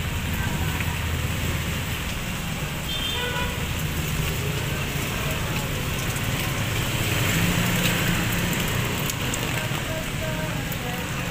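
Street noise in light rain: a steady hiss of rain on the wet pavement, with motorcycle and tricycle engines running in the traffic, a little louder about seven to eight seconds in.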